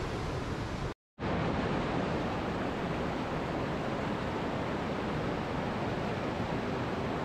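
Steady outdoor rushing noise, even and without any distinct events, broken by a short dead gap about a second in.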